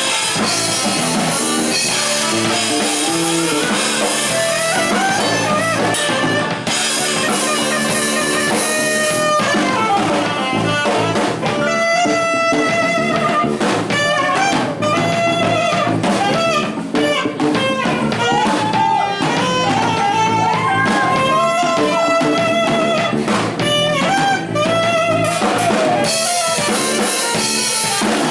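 Live band playing an instrumental passage on electric guitar and drum kit, the guitar playing bending lead lines over the beat.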